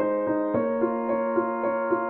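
Background music: a piano playing a slow ballad intro, repeated chord notes over a held bass note, with the chord changing about half a second in.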